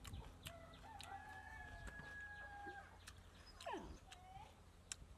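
A rooster crowing faintly: one long held call of about two seconds, ending in a falling note. A few small clicks sound now and then.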